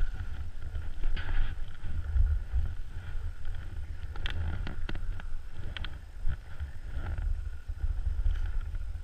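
Skis sliding and scraping over packed piste snow, with wind rumbling on the action camera's microphone and a few short clicks about halfway through.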